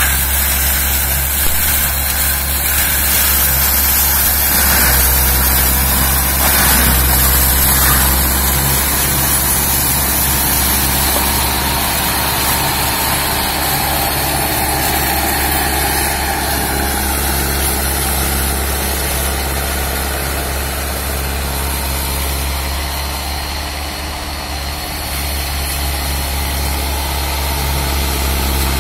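Zetor 9641 turbo tractor's diesel engine running steadily under load while it drives an FAE mulcher head that shreds brush. The level sags briefly about three-quarters of the way through, then picks up again.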